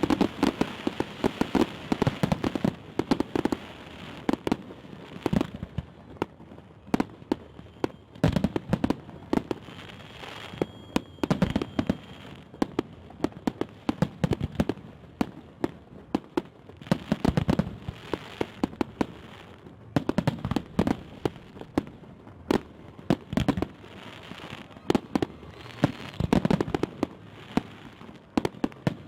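Fireworks display going off: a continuous run of sharp bangs and crackling, with groups of heavier booms from the bursting shells every few seconds.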